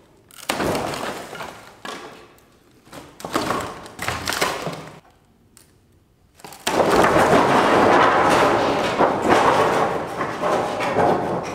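Wooden slab boards scraping and knocking against each other as they are handled on the stack: three short scrapes in the first few seconds, then a long, loud stretch of sliding and clattering wood starting past the middle.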